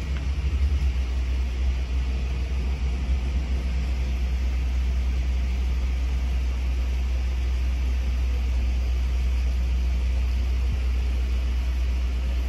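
Low, steady rumble of a Boeing 787-9 Dreamliner's jet engines passing high overhead.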